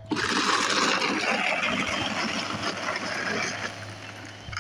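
Gravel scraping and rattling as the scoop of a ride-on toy backhoe digs into it. The rough, noisy sound starts abruptly and eases off towards the end.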